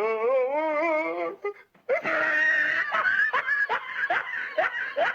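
A person's voice: a wavering, held cry for about a second and a half, then, after a brief break, a long run of rhythmic laughter.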